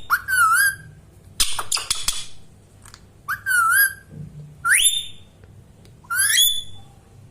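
Indian ringneck parrot calling: about five short, high whistled calls, each gliding up and then down, with a harsher, noisier squawk about a second and a half in.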